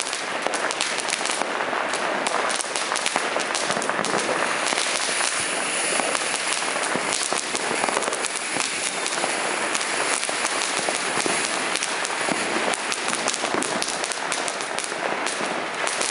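Box fountain firework (Phantom Fireworks Peach Flower in Spring) spraying sparks from its later tubes: a steady, loud hiss dense with many small crackles.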